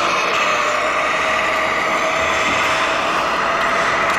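Radio-controlled scale model semi-truck driving, a steady whine that holds the same pitch throughout.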